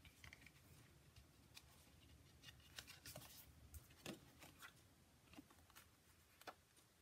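Near silence, with a few faint taps and rustles of card stock being picked up, handled and laid down on a paper-covered table.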